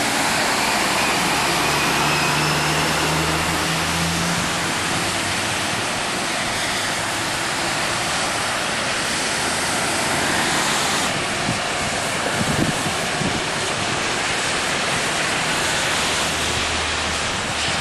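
Cars and tractor-trailers driving through floodwater on a highway: a steady rush of spray and splashing from the tyres, with an engine's low drone for the first few seconds.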